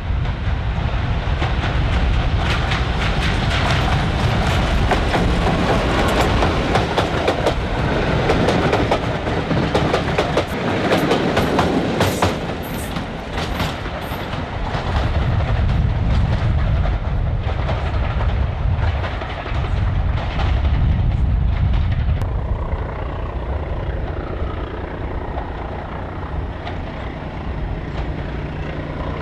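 Diesel locomotives hauling trains past, engines running with heavy low rumble. Through the first half, wheels clatter rapidly over rail joints as a train goes by. Near the end it settles to a softer, steady engine note.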